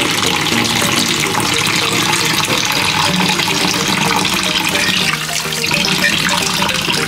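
Tap water running in a steady stream into a water-filled plastic bowl in a stainless-steel sink, splashing as a hand rinses a slab of raw pork under it.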